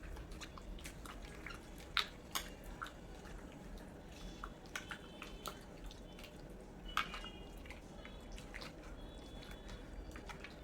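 Raw chicken pieces being mixed with a wet coriander and green chili paste: irregular soft squelches and small clicks, with a few sharper clicks.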